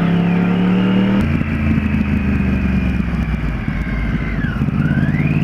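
Motorcycle engine running under way, heard from the rider's seat, its note changing about a second in. A thin high whine dips in pitch and rises back near the end.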